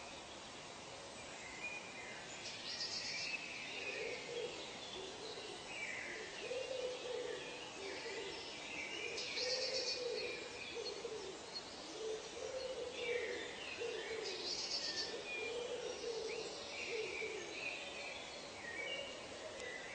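Natural ambience of birds calling: a low hooting call repeated many times through the middle, over higher chirps and twitters.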